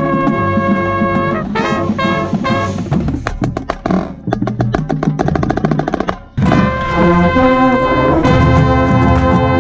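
Marching band playing: a held brass chord, then a stretch of rapid short accented hits from brass and drums, a sudden brief cut-off about six seconds in, then loud sustained brass chords over the drums.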